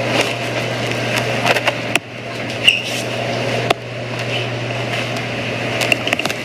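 A steady low hum under rough rustling and handling noise, with scattered clicks and a few knocks. The hum cuts off abruptly about six seconds in.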